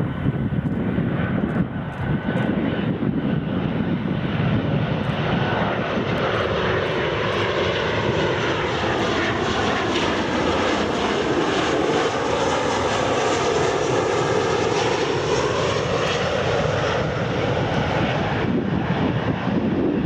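Ryanair Boeing 737-800 airliner on final approach with gear down, its twin CFM56 turbofan engines running in a steady jet roar. As it passes, the sound takes on a swooshing sweep that falls and then rises again.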